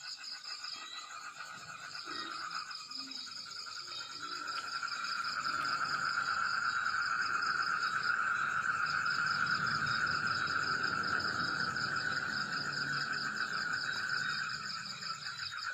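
Night chorus of calling insects and frogs: a steady high chirring with a lower pulsing trill that swells a couple of seconds in and eases near the end.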